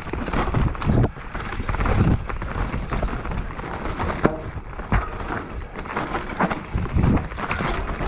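Canyon Strive enduro mountain bike descending a dirt forest trail: tyres rolling over dirt and roots, with irregular thumps and rattles from the bike over the bumps.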